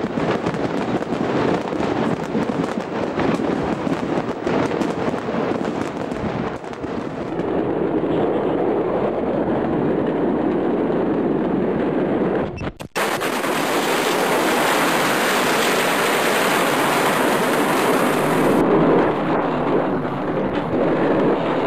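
Mass of stored fireworks going off at once: dense, rapid-fire cracks and bangs like a barrage, running into a steadier crackling din. About 13 seconds in, after a brief break, it gives way to a continuous loud rushing noise.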